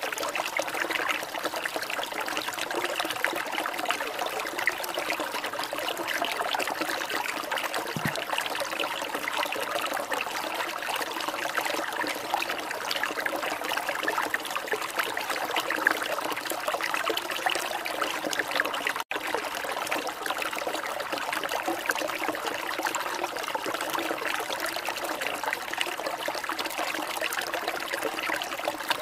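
Steady trickling, running water, as of a small stream, with an instant's break about two-thirds of the way through.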